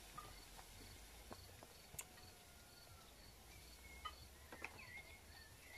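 Near silence with faint insect chirping, evenly repeated about three to four times a second, and a few soft clicks.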